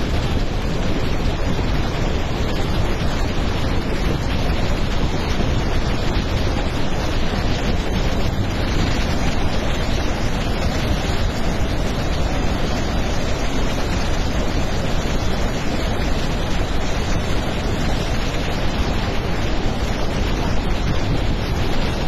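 Large waterfall in full flood: a steady, loud rush of muddy water plunging over a wide cliff.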